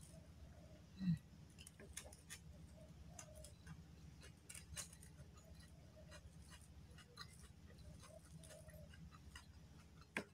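Faint scattered clicks and soft squishes of a bare hand mixing rice, bean sprouts and raw-tempeh sambal in a stone mortar, over a low steady hum. A short low sound about a second in is the loudest moment.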